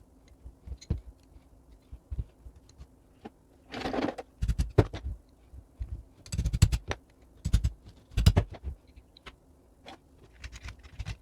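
Metal clinks, knocks and a scrape of tools working on a cast-iron door closer during disassembly. The knocks come in irregular clusters, loudest in the middle, with a short scraping sound about four seconds in.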